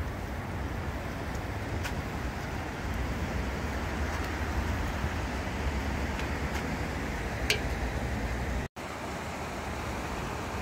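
Steady road traffic noise, a continuous low rumble of passing vehicles, with a faint click partway through and a brief total cutout of the sound near the end.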